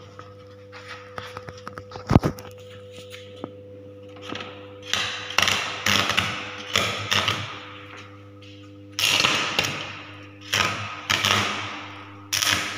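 Stick (shielded metal arc) welding with a consumable electrode on mild steel plates lapped for a joint, striking short tack welds. Over a steady transformer hum there is a sharp click about two seconds in. From about four and a half seconds, a run of brief crackling bursts follows as the arc is struck again and again.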